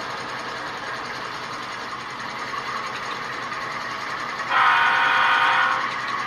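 ESU LokSound sound decoders in HO scale model GE ES44AC diesel locomotives play diesel engine sound through small speakers. About two-thirds of the way in, a loud horn blast of a little over a second sounds.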